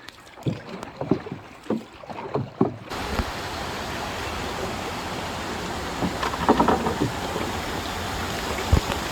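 Canoe being paddled on a river: paddle strokes splash in the water about twice a second. About three seconds in, a steady rushing noise of moving water and wind takes over, with a few knocks.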